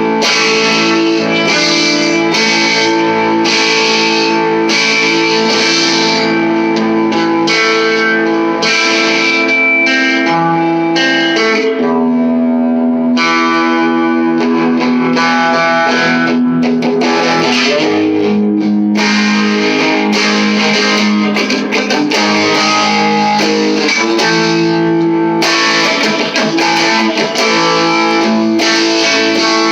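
Electric guitar played through an all-tube amp with overdrive, continuous chords and riffs. The tone turns less bright for a few seconds in the middle, then the full, gritty playing comes back.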